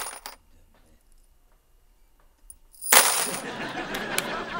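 A few sharp metallic clinks at the start. About three seconds in comes a sudden loud clatter that runs on as a dense, noisy spread and slowly fades.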